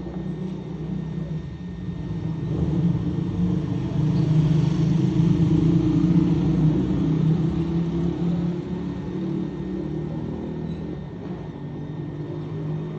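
A steady, loud, low engine rumble that swells to its loudest about four to seven seconds in, then eases off a little.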